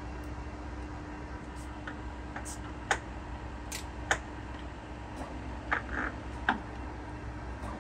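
Enshu F2 horizontal milling machine running with a steady hum. Over it come a handful of short, sharp clicks and knocks as the feed-rate selector on the knee is shifted to a higher feed.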